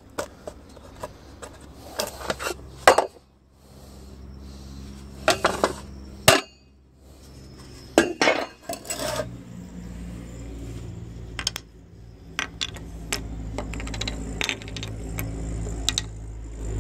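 Set sawdust-and-wax fire-starter pucks being knocked out of a metal muffin tin and set down on a hard surface: irregular clatters and knocks of hard wax against metal, in scattered clusters. A steady low hum sits underneath from a few seconds in and grows louder toward the end.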